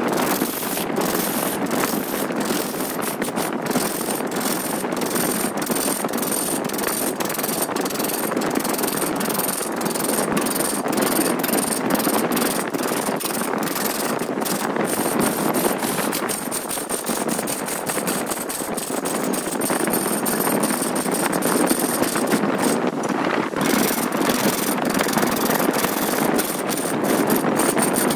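A hand tool cutting wood turning on a wood lathe: a steady, rough scraping with many small sharp ticks through it.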